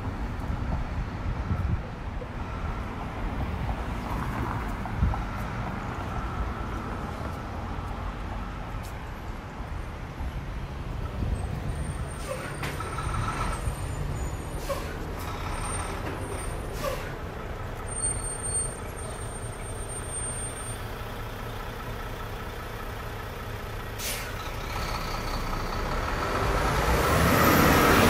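Road traffic at a street intersection: a steady low rumble of vehicle engines, then a car driving past close by, growing louder over the last few seconds.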